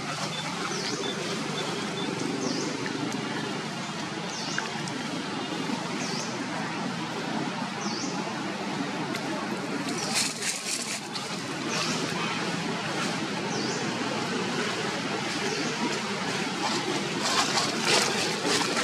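Outdoor ambience: a steady hiss with a short, high chirp repeating about every second and a half, and bursts of crackling around ten seconds in and near the end.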